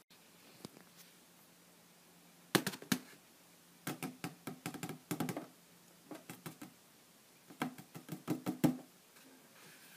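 Hands handling a cardboard shoebox, fingers knocking and rubbing on the lid as it is worked loose. The taps come in several quick clusters.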